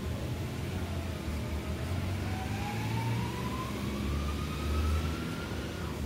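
A distant motor vehicle: its engine note rises slowly and steadily in pitch for about five seconds and falls away near the end, over a steady low rumble.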